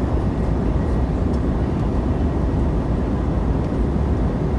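Passenger airliner cabin in flight: the steady low drone of engines and airflow, heaviest in the bass and unchanging.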